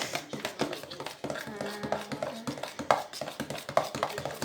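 Irregular clicks and taps of a utensil against a container as homemade slime is mixed.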